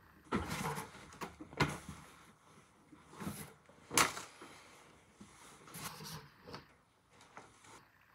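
Clothing being handled: five or so short rustles and swishes of fabric, the sharpest and loudest about four seconds in.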